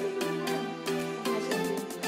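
Background music: pitched instrument notes changing over a regular beat.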